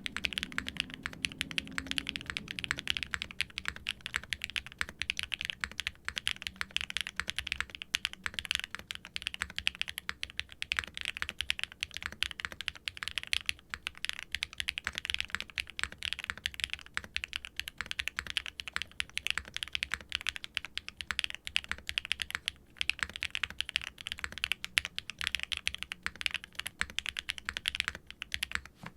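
Steady fast typing on a TKD Pt. 1/75 aluminium mechanical keyboard with Keygeek M1 linear switches and GMK doubleshot ABS keycaps: a dense stream of clacky key strokes with a few brief pauses. The switches are factory-lubed medium-weight linears with a POM stem and top housing and a nylon-fiberglass bottom housing.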